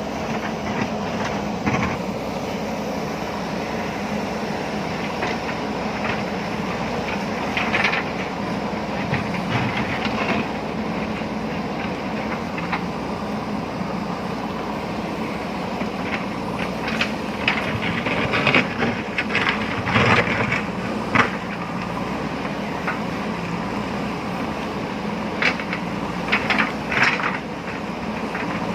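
JCB backhoe loader's diesel engine running steadily under working load, with bursts of sharp clattering and scraping as the bucket digs into stony ground, thickest in the second half.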